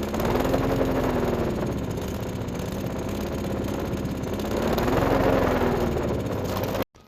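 Briggs & Stratton Platinum 7.25 single-cylinder lawn mower engine running, its speed rising and falling twice, then cutting off suddenly near the end. It is running a little rough, which the owner puts down to a carburetor that probably needs a full, thorough cleaning.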